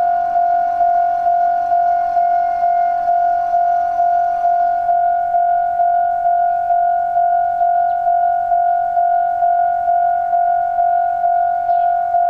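Japanese railway level-crossing warning bell ringing its rapid 'kan-kan' alarm: one steady ringing tone pulsing about three times a second without a break.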